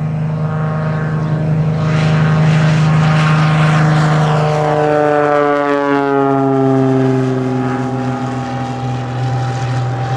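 Cessna light aircraft's propeller engine at full takeoff power as it passes, loudest a few seconds in. Its pitch then falls steadily for several seconds as the plane goes by and away.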